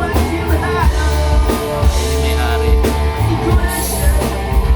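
A rock band playing, with a drum kit keeping a steady beat and a voice singing.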